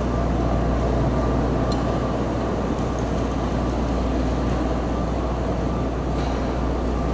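Hydraulic excavator's diesel engine running steadily: a constant low drone with a thin, steady whine above it.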